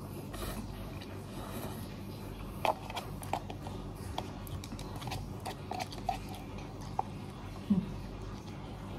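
A person eating instant noodles close to the microphone: soft chewing with scattered short mouth smacks and clicks, about one every second.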